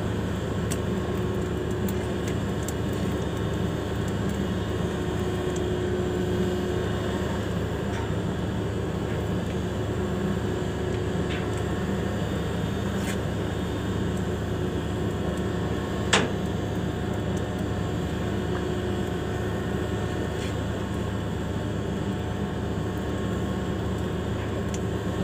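Large ship's machinery humming steadily, a low, even drone with a constant tone in it. A single sharp click about sixteen seconds in.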